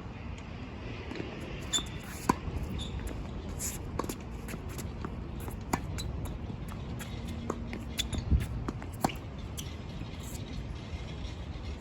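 Tennis rally: sharp, short racket strikes and ball bounces every second or two, over a steady low rumble of strong wind on the microphone.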